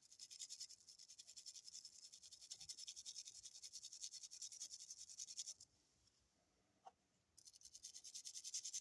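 Faint, quick scrubbing of a brass wire brush on a sterling silver ring, wet with soapy water, rubbing the surface to a brushed satin finish. The rapid strokes pause for a couple of seconds past the middle, then start again.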